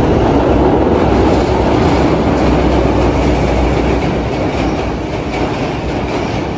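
Pakistan Railways passenger coaches rolling across a steel truss railway bridge: a steady, loud noise of wheels on rails with a deep low rumble, slowly getting quieter toward the end.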